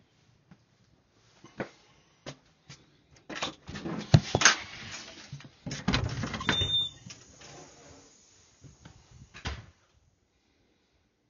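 Clicks, knocks and rattles of a door being opened and closed, its latch and handle worked, loudest in a cluster of bangs about four to seven seconds in.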